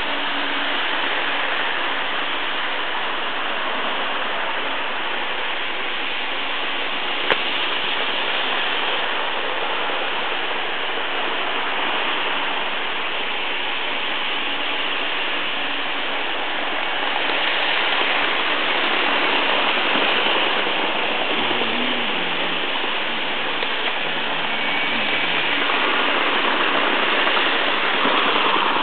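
Model trains running on a Märklin layout: a steady rushing whir of wheels on the track, swelling a little now and then as trains pass closer. A single sharp click sounds about seven seconds in.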